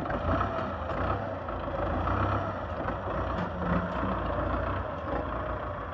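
Belarus 510 tractor's diesel engine running steadily while working its hydraulic front loader, lifting and tipping a bucket of straw.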